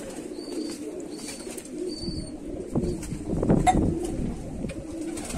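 Domestic pigeons cooing steadily, a low wavering coo running throughout. About three seconds in there is a louder scuffle lasting about a second.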